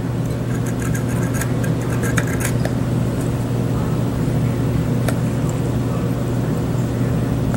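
A steady low hum with a few faint, light clicks of tweezers tapping the glowing coils of a rebuildable atomizer.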